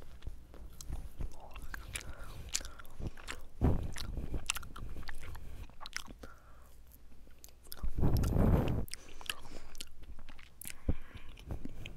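Close-up biting and chewing of mochi: wet mouth clicks and smacks, with two louder noisy rushes, one about four seconds in and the loudest just after eight seconds.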